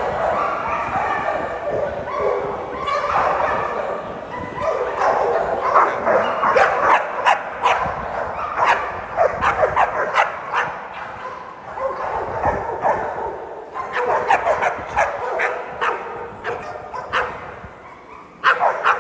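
American Pit Bull Terriers barking and yipping over and over in clusters of sharp barks, with brief lulls between them.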